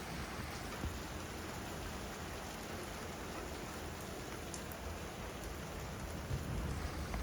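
Hail falling steadily: a dense hiss of stones landing, with a few sharper single ticks.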